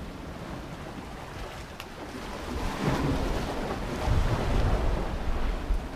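Wind buffeting the microphone over waves washing against the rocks, louder from about halfway through.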